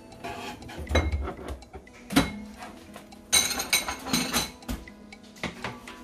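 Kitchen utensils and dishes knocking and clinking on a countertop as a knife and cutting board are handled. A sharp knock comes about two seconds in, and a ringing metal clatter a little after three seconds.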